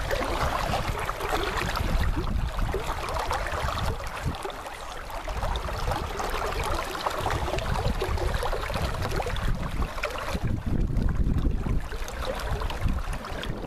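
Flowing river water rushing over a riffle, with wind rumbling on the microphone.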